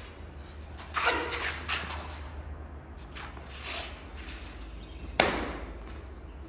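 Sharp snapping hits from a kung fu hand form's strikes and stepping: a strong one about a second in, a few lighter ones, and the loudest about five seconds in.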